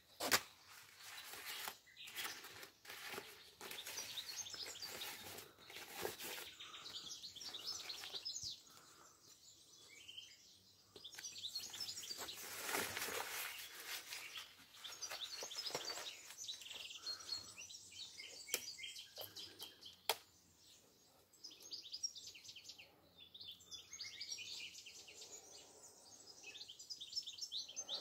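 Birds chirping and twittering in the background, many short high calls in irregular runs, with a sharp click right at the start and a few single clicks later.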